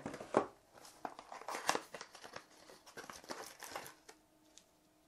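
Crinkling and rustling of a small cardboard box and its clear plastic packaging being handled and opened, in quick irregular crackles that stop about four seconds in.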